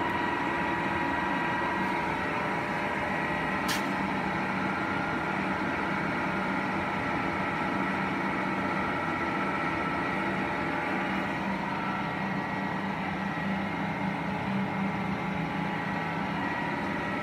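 Kingston HD-22160 gear-head lathe running with the carriage traversing under longitudinal power feed: a steady mechanical hum of the gear train with a few held tones over it. A single sharp click about four seconds in.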